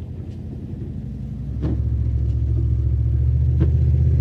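Low rumble of a Dodge Ram 1500 pickup heard from inside the cab while driving in snow, getting louder about a second and a half in. A short knock comes about every two seconds.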